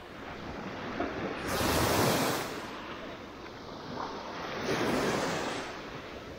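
Small waves of the Black Sea breaking and washing up onto a sandy beach, two washes swelling in and ebbing away, about three seconds apart.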